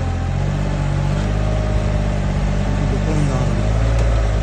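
JCB mini excavator's diesel engine running steadily.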